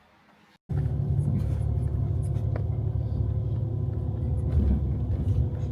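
Steady low rumble of a moving road vehicle, engine hum and road noise with a few faint ticks, starting abruptly about half a second in after near silence.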